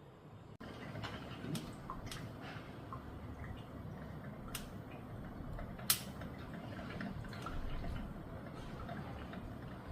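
Heating plate of a KitchenAid drip coffee maker clicking: a few sharp, irregular clicks several seconds apart, the loudest about six seconds in, over a low steady background noise. The plate clicks like this periodically after brewing while it is left switched on.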